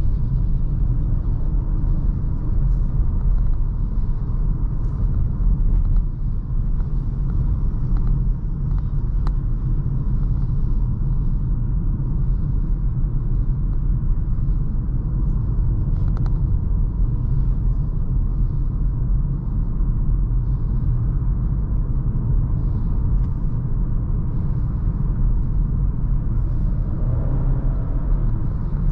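Steady low road and engine rumble inside the cabin of a 2021 Chery Tiggo 4 Pro while it is driven.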